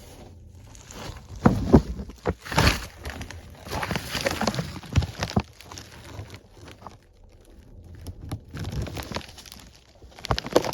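Irregular knocks, scuffs and rustling of a person moving about on hands and knees in a crawl space, in clusters of short noises with brief lulls.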